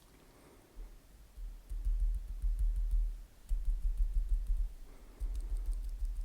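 Close-miked mochi eating: soft muffled thumps with small sharp sticky clicks scattered through.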